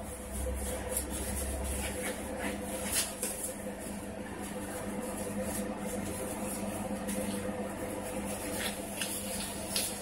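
Thin disposable vinyl gloves crinkling now and then as they are pulled onto the hands, over a steady hum.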